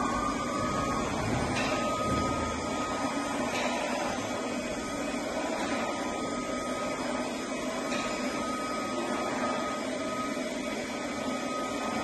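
Student-built robot vacuum cleaner running, its suction mechanism and drive motors giving a steady whirring hum with a thin high tone over it.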